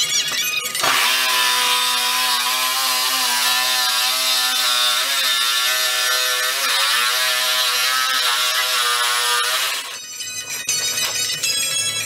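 Reciprocating saw cutting through a walk-in refrigerator's wall panel: the motor runs at a steady pitch under a harsh rasping noise, starting about a second in and cutting off shortly before the end. Light clatter follows.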